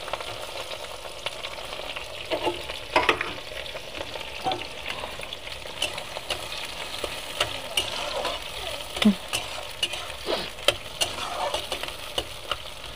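Sliced onions and green chillies sizzling in hot oil in a metal kadai, frying towards light brown, with a steel spatula scraping and clicking against the pan as they are stirred.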